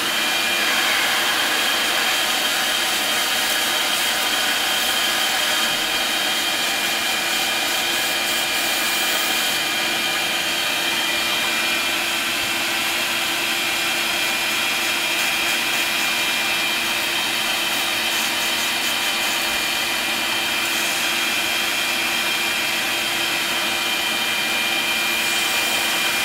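Shop vacuum running steadily with a whine, its nozzle held at a drilled anchor hole in a concrete foundation wall while an air blow gun blasts the drill dust out of the hole to clean it for epoxy. The hiss of compressed air grows stronger twice, for a few seconds each time.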